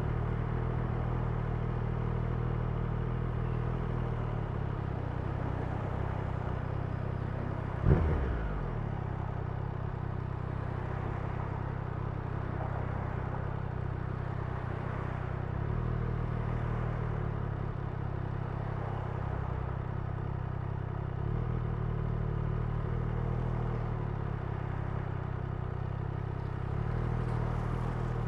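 Triumph Street Triple's three-cylinder engine and exhaust running at a fairly steady pace from the rider's seat, with a single sharp knock about eight seconds in.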